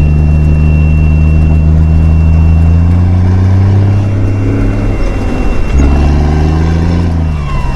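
A 5-ton military truck's engine running under engine braking in first gear down a steep grade, its pitch slowly rising as the RPMs climb. About five seconds in the sound briefly drops out and then picks up again, and near the end the pitch falls.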